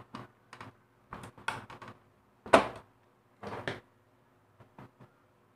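Plastic casing of a mini sewing machine clicking and knocking as it is handled and pried at with a scissor blade to open it. The clicks come irregularly, the loudest about two and a half seconds in, a quick cluster about a second later, then a few faint ticks.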